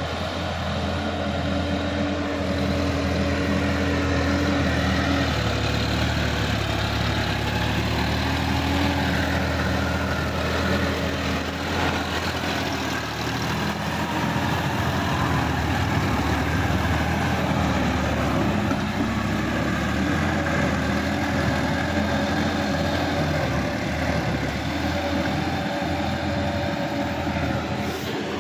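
Sonalika tractor's diesel engine running steadily under load, pulling a rotary tiller through a flooded paddy field and churning mud and water.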